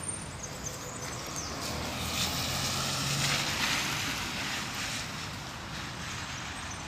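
A vehicle passing on a wet, flooded street: a low engine hum and a broad tyre hiss that swell about two seconds in and fade again, over steady outdoor background noise.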